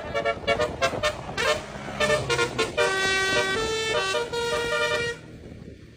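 Basuri telolet horn playing a melody of stepped notes, quick short ones at first and then a few longer held tones, cutting off suddenly about five seconds in.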